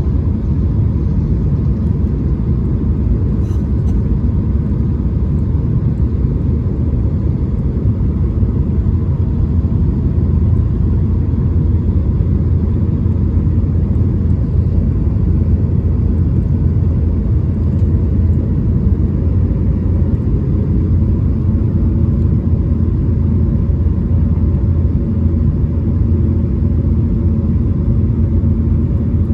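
Steady low rumble of cabin noise inside an Airbus A220-300: its Pratt & Whitney PW1500G geared turbofans and the airflow over the fuselage, heard from a window seat during the landing in Vancouver.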